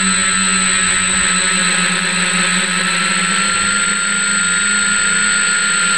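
F550 hexacopter's six electric motors and propellers running in flight, heard close up from a camera on the frame: a steady drone with a high whine whose pitch shifts only slightly.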